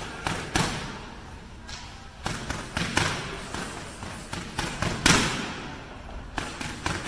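Boxing gloves smacking AnyStrike focus mitts in punch combinations: sharp slaps in quick clusters of two to four, about a dozen in all, the loudest about half a second in and about five seconds in.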